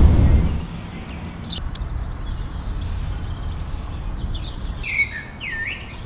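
Birds chirping, with short sweeping calls about a second in and a cluster near the end, over a steady low rumble. A deep rumble dies away in the first half second.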